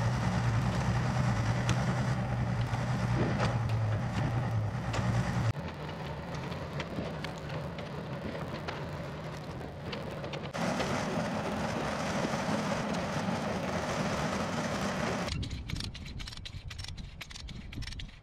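Yanmar mini excavator's diesel engine running under load while working a big tree. The sound jumps in level at hard cuts every few seconds, and near the end it drops to a quieter stretch of rapid clicking.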